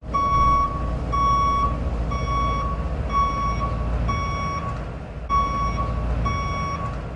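Electronic beeper sounding a steady run of half-second beeps, about one a second, over a low rumble.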